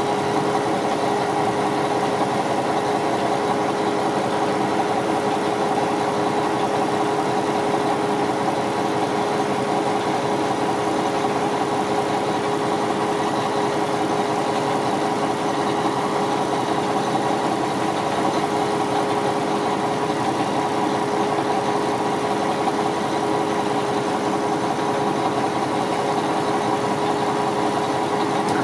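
2007 Mack CV713 winch truck's diesel engine idling steadily, with a constant whine held over the engine note.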